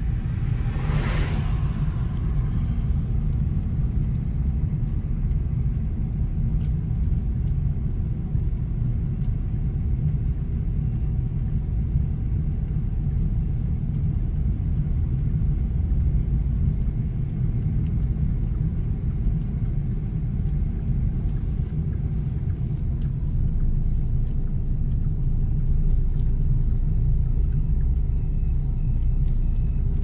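Car driving slowly on a road, heard from inside the cabin: a steady low engine and tyre rumble. A brief whoosh about a second in as an oncoming vehicle passes.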